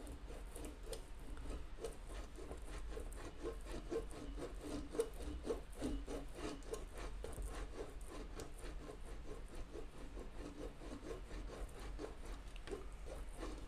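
Brass bugle bell flare rubbing against a steel machine wheel as it is worked around by hand to reshape the rim, in a soft rhythmic scrape of about two strokes a second.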